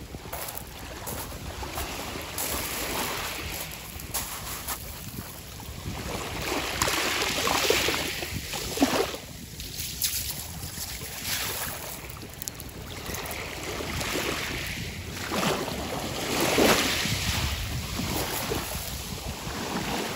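Sea waves breaking and washing up a sand-and-pebble shore, swelling and ebbing several times, with wind buffeting the microphone.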